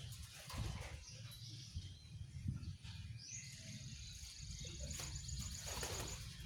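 Quiet outdoor ambience with a low rumble and a few faint scattered sounds. A high, steady buzz starts about three seconds in and stops about three seconds later.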